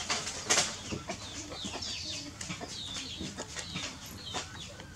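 Chickens clucking, with many short high calls scattered throughout. A brief loud noise comes about half a second in.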